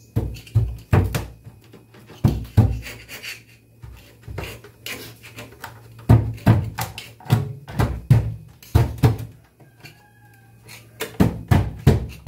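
Hard knocks in irregular quick runs of two to five, about three a second, with short pauses between: hammering during work on a kitchen sink.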